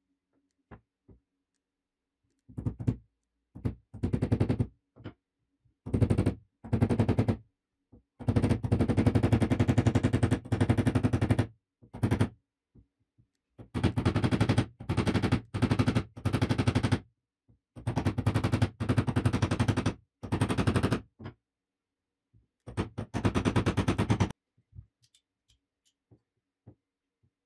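Hammer blows in about a dozen runs of very rapid strikes, each run lasting up to about three seconds, as a new wooden handle is driven home and wedged into a hammer head's eye.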